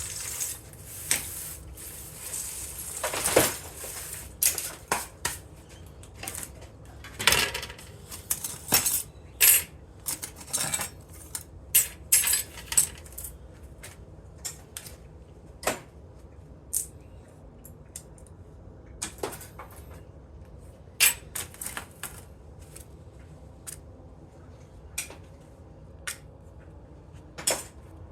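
Small metal scrap parts pulled from an electric organ clinking and clattering as they are handled and dropped together. The knocks come thick and fast in the first half and become scattered single clinks later.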